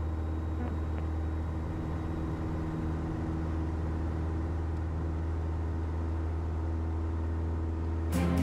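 Piper Archer's four-cylinder Lycoming engine and propeller running steadily, heard inside the cabin as a strong, even low drone. Music comes in near the end.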